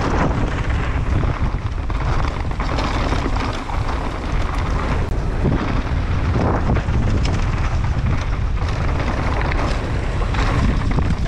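Mountain bike descending a bike-park trail at speed: steady wind buffeting the microphone over tyre noise on dirt, with scattered rattles and knocks from the bike over bumps.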